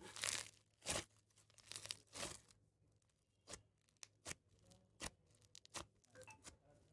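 Crunchy floam slime being squished and stretched by hand: a few crackling squelches, then scattered sharp pops and clicks as the foam beads burst.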